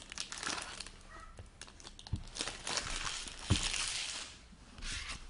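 Trading-card packs and cards handled by hand: foil wrapper crinkling and cards rustling in irregular bursts. There are two soft taps, about two and three and a half seconds in.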